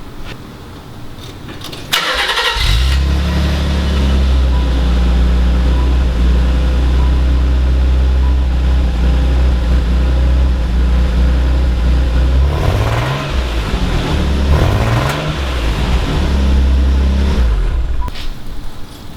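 Nissan 300ZX V6 cold start: the starter cranks briefly about two seconds in, the engine catches and settles into an idle with a little bit of a rumble, the sign of its rough idle. About two-thirds through, the engine speed swings up and down a few times, and the engine is shut off near the end.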